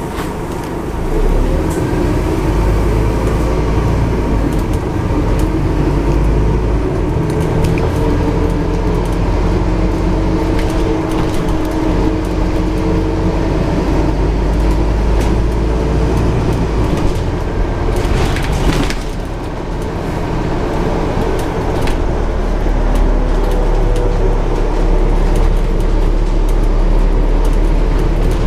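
Scania N230UD double-decker bus on the move, heard from the upper deck: its five-cylinder diesel engine runs with a deep rumble that swells and eases off several times as the bus drives. There is a brief loud noisy burst about two-thirds of the way through.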